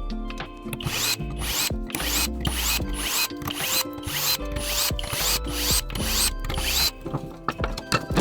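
A ratcheting mechanism worked in repeated rasping strokes, about two a second, for around six seconds, over steady background music.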